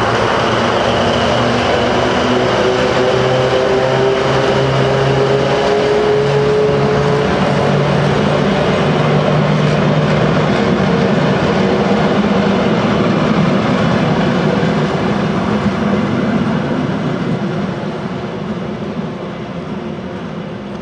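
Trenord DE 520-014 diesel-electric locomotive hauling two carriages past: its diesel engine runs steadily over the rumble of wheels on rail. The sound fades from about sixteen seconds in as the train moves away.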